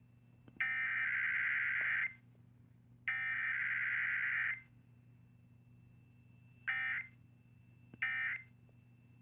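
Emergency Alert System digital data bursts: the rasping, buzzy screech of SAME data tones. Two long bursts of about a second and a half each are followed by three short bursts about a second and a half apart, the end-of-message code that closes the test.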